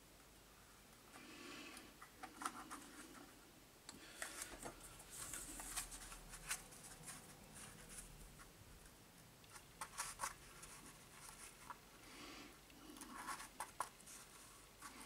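Faint scratching and small clicks of half-matchsticks being pushed into the holes of corrugated cardboard packed in a tuna tin.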